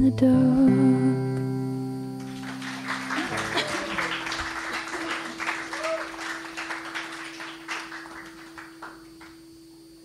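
Acoustic guitar's final strummed chord ringing out, then audience applause that starts about two seconds in and gradually dies away.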